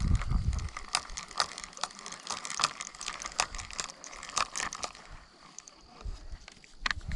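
Irregular light clicks and crinkling rustle close to the microphone, several a second at first and thinning out after about five seconds: handling noise around a fishing rod and reel on a grassy bank.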